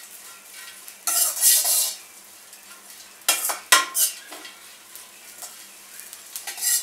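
Steel spatula scraping and clicking against a stainless steel wok as sun-dried onion slices are stirred in a little oil. It comes in bursts: a long scrape about a second in, a few sharp clicks around three to four seconds, and more scraping near the end, with a faint sizzle between.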